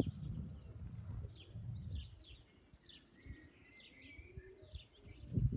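Small songbirds chirping and twittering in quick short notes, with a low rumble in the first couple of seconds and a brief thump near the end.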